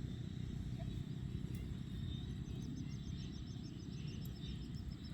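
Outdoor ambience with a steady low rumble. From about halfway through, a small animal gives a fast run of short, high chirps, about eight a second.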